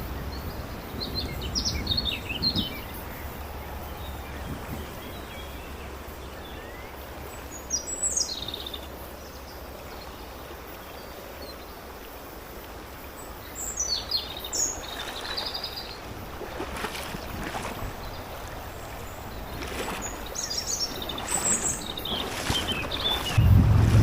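Songbirds chirping in short clusters of high notes over the steady rush of a mountain stream. Wind rumbles on the microphone just before the end.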